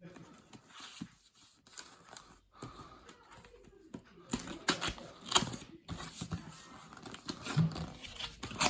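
A cardboard box and its packing being torn open and handled by hand: irregular tearing, crinkling and scraping, with a few sharp knocks, busier and louder from about halfway through.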